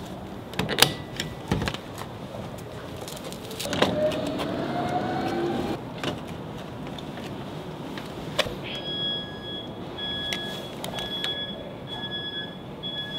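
Clicks and clunks of the charging gear at an electric city bus's charging station, with a brief rising whine about four seconds in. From about nine seconds in, a steady electronic beep repeats about one and a half times a second as the battery charging gets under way.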